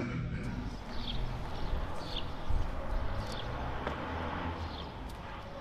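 Outdoor ambience: short high chirps of small birds, about one a second, over a steady low rumble.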